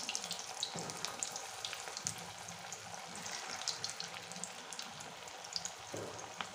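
Potato and carrot balls deep-frying in hot oil in a kadai: a steady sizzle scattered with small crackles and pops.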